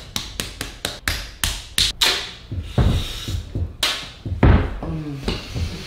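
A rapid run of sharp taps and clicks over the first two seconds, then a few dull thumps.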